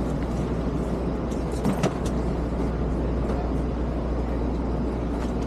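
Steady low hum and rumble inside a passenger train car, with one sharp knock about two seconds in.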